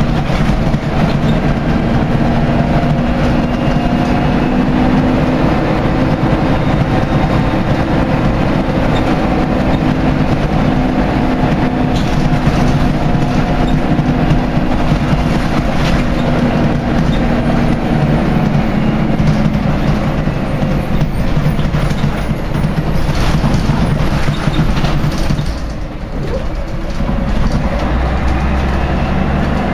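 Scania L113's rear-mounted 11-litre six-cylinder diesel and drivetrain, heard from inside the moving single-deck bus: the engine runs under load with its pitch slowly rising and falling over road and body rumble. The bus's gearbox has a slipping-gears fault. Near the end the sound briefly drops away, then a deeper rumble comes in.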